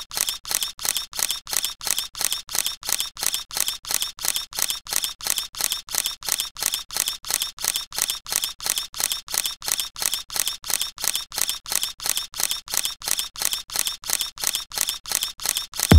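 Camera shutter clicks, a sound effect repeated at an even pace of about three a second.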